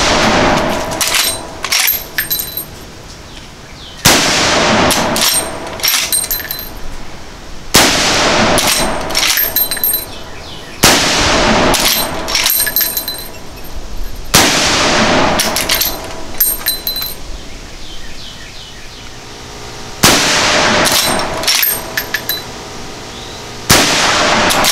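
Marlin Model 1895 Trapper .45-70 lever-action rifle fired six times, a few seconds apart, with a longer pause before the fifth shot. Each shot is followed within a second or two by the clack of the lever being cycled and a brief metallic ring.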